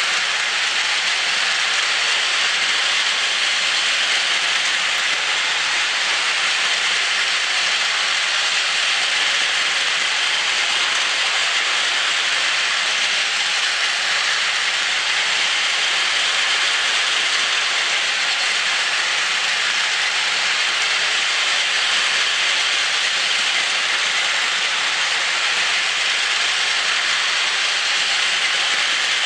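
Two Plarail battery-powered toy shinkansen trains, an E5 and an E6 in full formation, running together on plastic track, giving a steady whir from their small motors and wheels.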